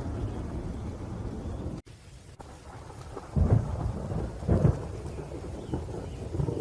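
Thunderstorm: steady rain with rumbling thunder, with two loud low thunder peaks about three and a half and four and a half seconds in. The sound cuts out briefly about two seconds in.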